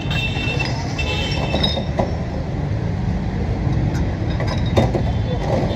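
Glass soda bottles clinking and ringing as they are handled and poured into plastic cups, with a few sharp knocks of glass, over a steady low rumble of street traffic. The ringing is clearest in the first two seconds.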